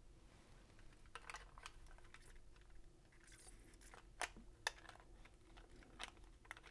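Faint handling noise of a 35mm film leader being slid into the take-up spool of an Olympus XA2 film camera: scattered small plastic clicks and film rustles, with a couple of sharper clicks about four seconds in.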